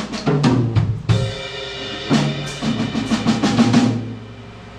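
Live band playing: a drum kit with kick, snare and cymbal hits over sustained low bass notes, the playing stopping about four seconds in.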